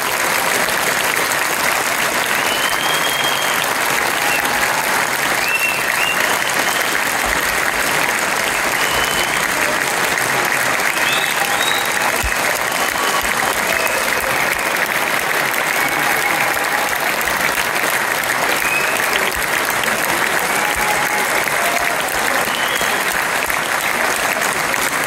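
Large concert audience applauding steadily, with scattered cheering.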